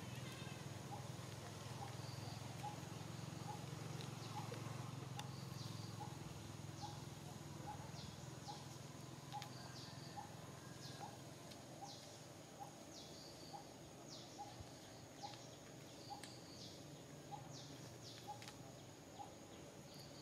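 Faint outdoor bird calls: a soft pip repeating about once a second, with sharp high chirps and paired high notes every second or two, over a steady high-pitched whine and a low hum.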